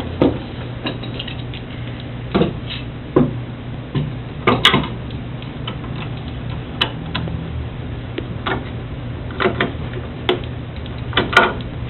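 Scattered light knocks and clicks at uneven intervals, wooden workpieces and jig parts being handled and set together on a workbench, over a steady low hum.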